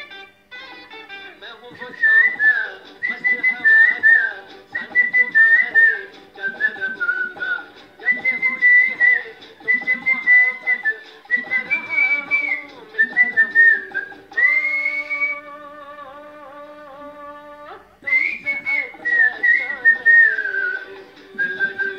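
A man whistling the melody of a Hindi film song into a microphone, in short phrases that rise and fall, over a karaoke backing track. About two-thirds of the way through the whistling pauses for a few seconds while the backing holds a steady instrumental chord, then resumes.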